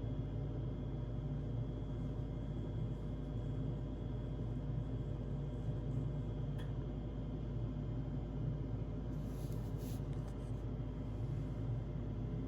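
Carrier gas furnace running, its draft inducer (exhaust fan) motor giving a steady hum and rumble with faint whining tones: the noise of worn-out fan motor bearings.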